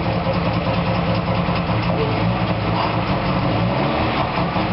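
Freshly restored DKW-Vemag three-cylinder two-stroke engine of a Puma GT running steadily at idle.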